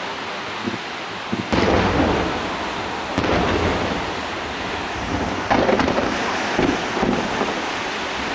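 Starmine firework barrage: aerial shells bursting in quick succession over a continuous rumble and crackle. Heavy booms land about a second and a half in, at about three seconds, and several more between five and a half and seven seconds.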